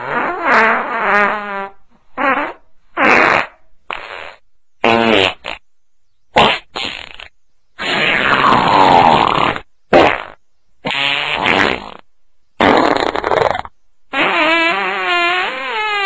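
A string of about a dozen fart sounds with short gaps between them, some with a wobbling pitch, others breathy and noisy. One about eight seconds in lasts nearly two seconds, and the last, starting about fourteen seconds in, runs on as a long wavering tone.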